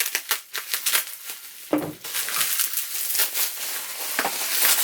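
Bubble wrap crinkling and rustling in quick crackles as it is pulled off a boxed vinyl figure, with a dull knock a little under two seconds in.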